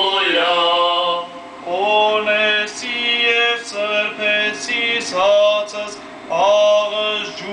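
A man's voice chanting an Armenian church hymn in long, held notes that step between pitches, with short pauses between phrases.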